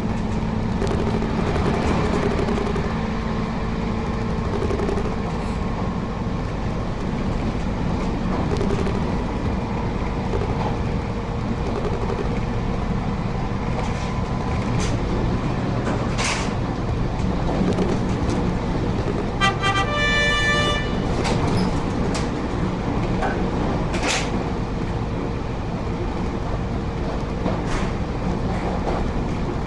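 Steady rumbling running noise of a train, with a few sharp clicks and a short horn sounded about two-thirds of the way through.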